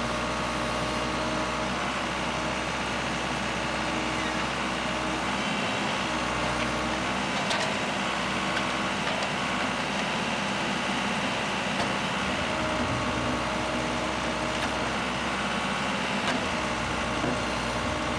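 An engine idling steadily, with a few faint ticks over it.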